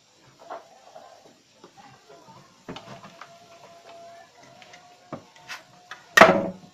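Scattered clicks and knocks of a screwdriver and hand working on a plywood computer cabinet panel, with one loud, sharp knock near the end.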